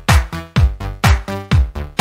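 Electronic dance music with a steady four-on-the-floor kick drum about twice a second and pitched synth notes between the beats.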